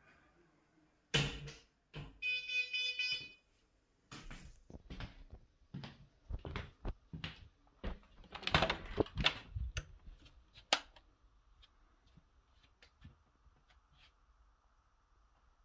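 A sharp knock, then an electronic buzzer sounds for about a second, followed by a run of irregular knocks and clatters.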